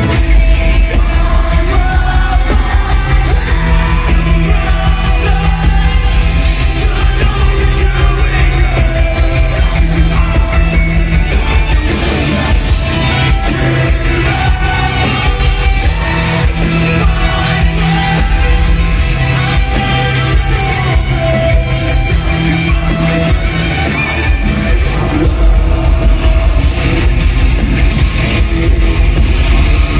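A metal band playing live, recorded from the crowd: loud distorted electric guitars and drums with a pounding kick drum, with vocals over the top.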